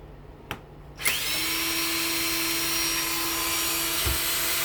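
Power drill spinning up about a second in and running with a steady whine, driving out a long screw from a front-load washing machine motor. A low knock sounds near the end.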